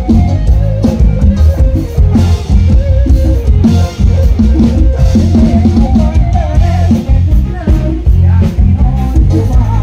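Loud live band music from a rot hae sound truck's loudspeaker stacks: Thai ramwong sam-cha dance music with a steady drum-kit beat, heavy bass and electric guitar, a wavering melody running over it.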